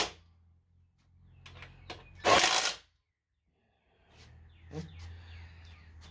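Handling noises of tools and mower engine parts during reassembly: scattered clicks and knocks, with one loud half-second clatter about two and a half seconds in. A low steady hum joins the clicks in the last two seconds.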